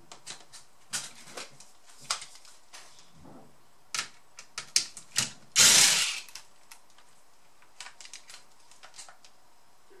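Small clicks and taps of laptop parts and screws being handled, then an electric screwdriver runs for just under a second on a screw in the laptop's motherboard, a little past halfway, followed by a few light ticks.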